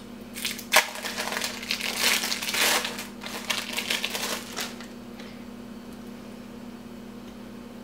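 Crinkling and rustling of plastic wrapping and packaging as an American cheese slice is unwrapped and handled, a quick run of rustles that stops about four and a half seconds in. After that only a faint steady hum remains.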